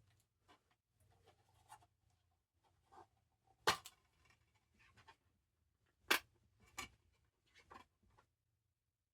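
Plastic DVD case and disc being handled: scattered light clicks and taps, the two sharpest about four and six seconds in.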